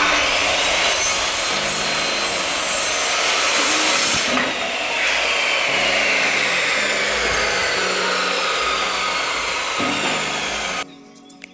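Power saw cutting through wood: a loud, continuous cutting noise with a whine that slides in pitch as the blade loads. It cuts off abruptly near the end.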